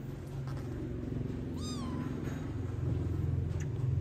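A kitten gives one short, high meow a little before halfway through, over a steady low hum.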